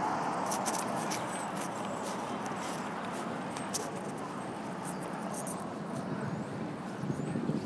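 Outdoor street ambience: a steady rush of noise, a little louder at the start and easing off, with faint scattered clicks.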